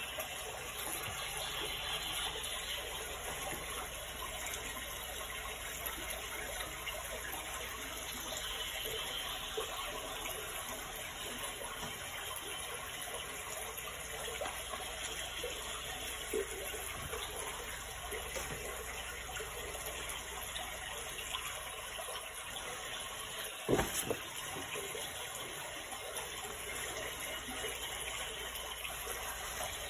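A steady rush of running water, with one short knock about three-quarters of the way through.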